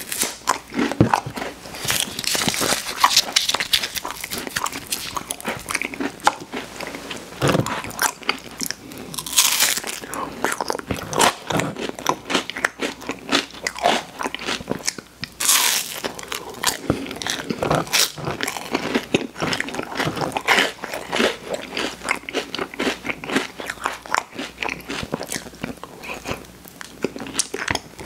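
Eating an ice cream cone: crunchy bites into the wafer cone and chewing, with an especially loud crunch about nine and a half seconds in and another around fifteen and a half.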